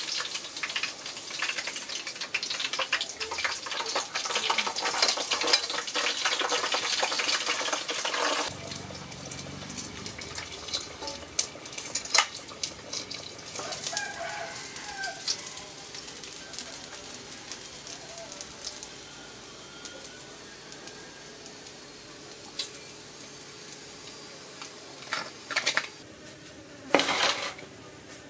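Pork belly deep-frying in a pot of hot oil: a dense crackling sizzle that stops suddenly about eight seconds in. Quieter background follows, with scattered clicks and a few loud knocks near the end.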